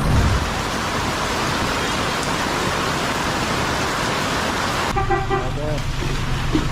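Heavy rain falling as a steady hiss. About five seconds in it cuts off abruptly to the low rumble of road traffic, with a short car horn toot.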